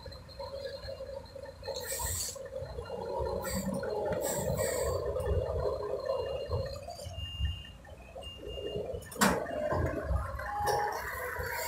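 UD Quester tractor unit's diesel engine running slowly under load, pulling a truck crane on a low-loader trailer, an uneven low rumble. A sharp knock comes about nine seconds in.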